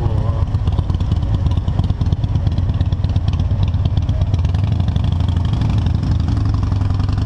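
Motorcycle engine running steadily while cruising at low speed, a low even pulsing note with no revving.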